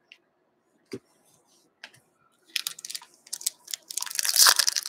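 A few soft clicks of cards being handled, then a foil trading-card pack wrapper crinkling, growing loud in the last second or so as it is worked open.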